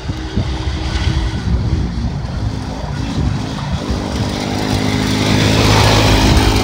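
Tao Tao 125cc ATV engine running under throttle, growing louder over the last couple of seconds as the quad comes close.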